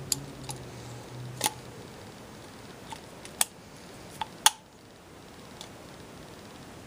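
About six sharp, scattered metallic clicks of snap-ring pliers and an internal circlip being worked into a go-kart brake master cylinder. The loudest click comes about four and a half seconds in.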